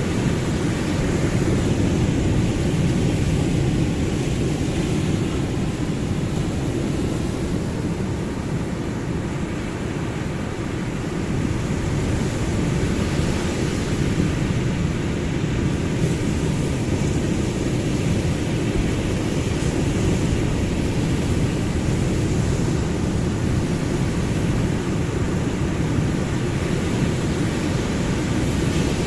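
Ocean waves: a continuous, deep rushing wash of surf, easing a little about ten seconds in and then building again.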